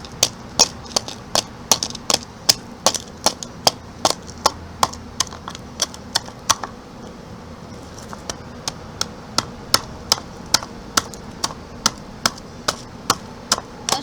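Rapid, regular sharp knocks of a tool chipping at a block of ice frozen in a bowl, about three strikes a second, with a short pause a little past halfway before the chipping resumes.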